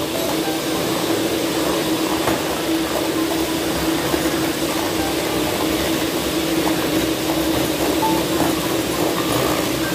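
Electric hand mixers running steadily, their beaters whirring through cake batter in metal bowls, with a steady motor hum.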